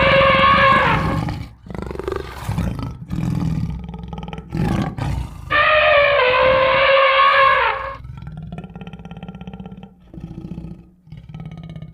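Wild animal sound effects: two long, loud pitched calls that fall slightly in pitch, with shorter calls and a steady low rumble between and after them.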